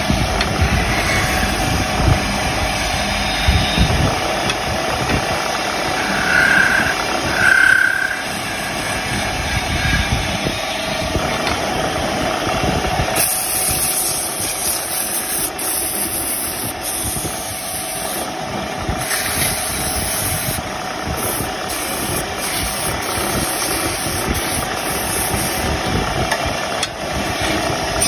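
Wood lathe running steadily, spinning a small turned wooden knob in its chuck; a continuous motor hum with a steady whir.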